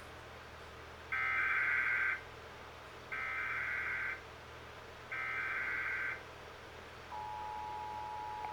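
Emergency Alert System tones from a television speaker: three one-second bursts of the SAME header's buzzy digital data, evenly spaced, then the steady two-tone attention signal starts about seven seconds in and holds. They mark the start of an EAS Required Monthly Test.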